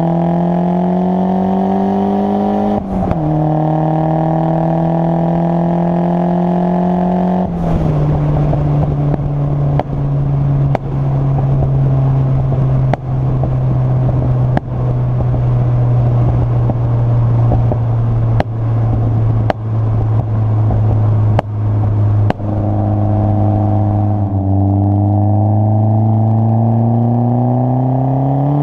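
Ford Sierra Sapphire Cosworth's turbocharged 2.0-litre four-cylinder heard at the tailpipe through a Mongoose exhaust while driving. It revs up through two gear changes, about three and seven seconds in, then holds a steadier pitch with a string of sharp exhaust pops and bangs, and climbs again near the end.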